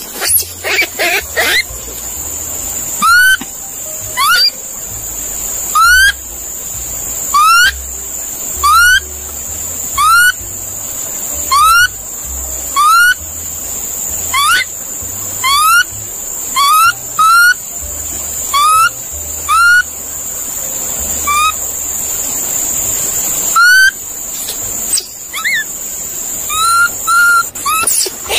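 Monkey calls: a short call that rises in pitch, repeated about every second and a half with a few closer pairs, over a steady high-pitched drone.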